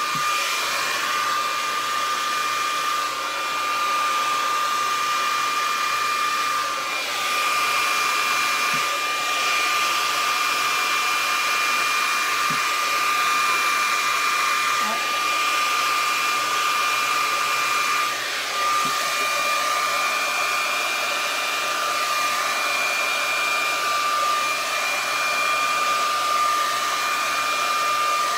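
Handheld hair dryer running steadily, blowing wet acrylic pour paint across a canvas: a rush of air with a steady whine over it, dipping briefly a couple of times as the dryer is moved.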